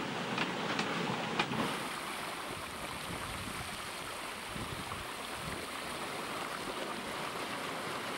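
Seawater rushing and splashing past a moving sailboat, a steady hiss of waves and spray, with a few light clicks in the first second or so.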